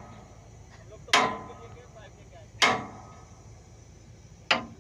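Heavy hammer blows on steel, three strikes about a second and a half apart, each with a short metallic ring.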